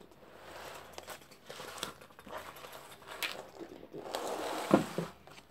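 Rustling and crinkling of a shiny plastic-coated pencil case being opened and its contents handled, with a few sharp clicks of pens; the loudest click comes a little before the end.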